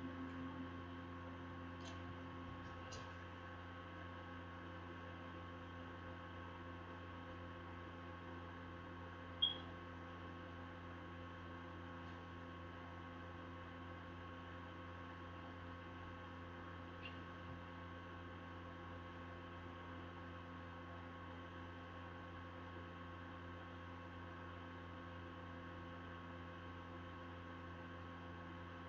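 Steady low electrical hum with several faint held tones, and one sharp click about nine and a half seconds in.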